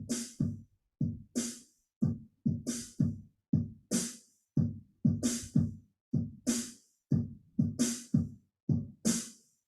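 Electronic keyboard's built-in drum kit voices playing a simple repeating beat: short low bass-drum thumps with a brighter, hissier hit about once a second. The beat stops just before the end.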